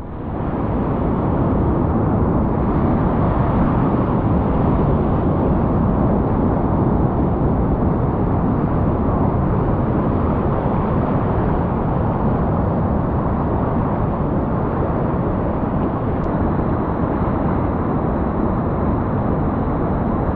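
Whitewater rapids rushing steadily around boulders, heard close up from a kayak in the rapid.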